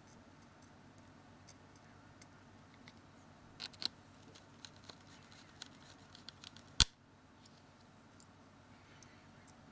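Light clicks and scratches of a small Phillips screwdriver and tiny screws working against a phone's plastic case, with one sharp click about seven seconds in.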